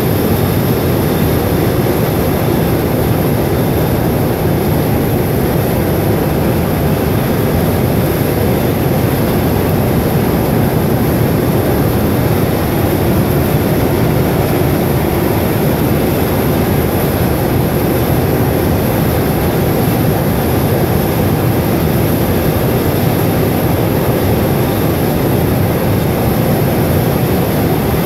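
Steam venting from a ruptured underground steam pipe, a loud, steady rush of noise like a jet engine that holds unchanged throughout.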